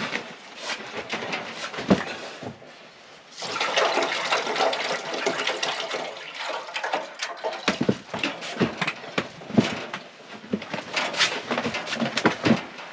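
Knocks, clicks and rustles of gear and plastic water jugs being handled and set down, with a steady rushing noise for a few seconds, starting about three and a half seconds in.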